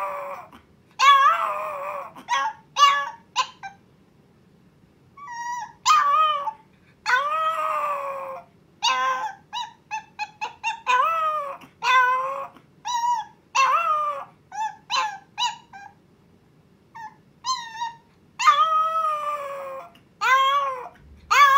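Long-coat Chihuahua puppy howling, a series of long wavering high howls broken by short yips and whimpers, with a few brief pauses. It is the puppy's first howling, a distress call for its absent owner while left alone in its crate.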